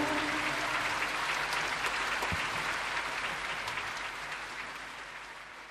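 Concert audience applauding right after the song ends, the applause fading steadily away.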